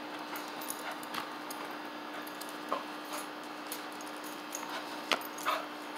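A dog's tie-out chain and collar jingling in short, scattered clicks as it chases bubbles, the loudest a little after five seconds in, over the faint steady hum of a bubble-blower motor.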